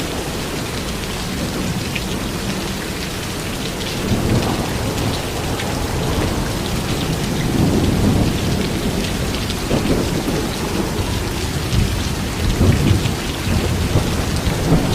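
Heavy rain falling steadily, with low rumbles of thunder swelling and fading several times.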